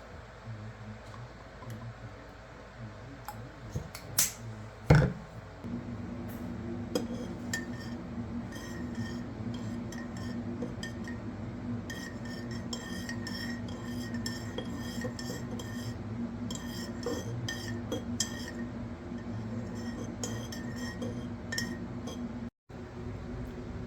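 A metal spoon clinking against a ceramic coffee mug as coffee is stirred, with a few sharper knocks early on, over a steady low hum that starts a few seconds in.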